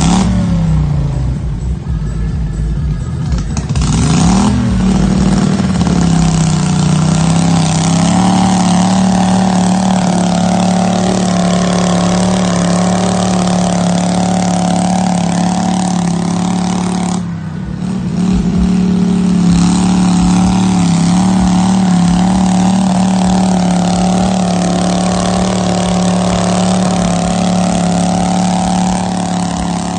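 A pulling garden tractor's engine revs up about four seconds in and holds at high, steady revs as it drags a 400 kg weight-transfer sled. The revs dip briefly about two-thirds of the way through, then pick back up.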